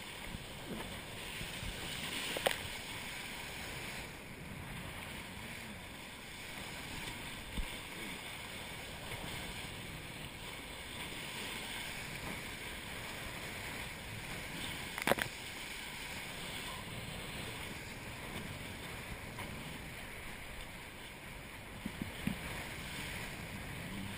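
Hobie Cat catamaran sailing fast through choppy water: a steady rush of water and wind past the hulls and spray, with a few sharp knocks, the loudest about two and a half seconds and fifteen seconds in.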